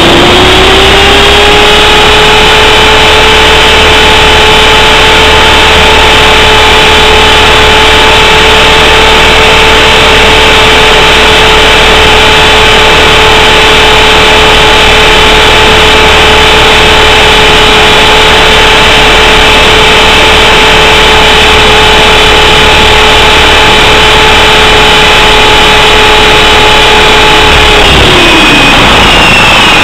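450-size RC helicopter's motor and rotor whine, picked up very loud by a camera mounted on the helicopter itself. The pitch rises at the start as the rotor spools up, holds steady through the flight, then falls away about two seconds before the end as it spools down.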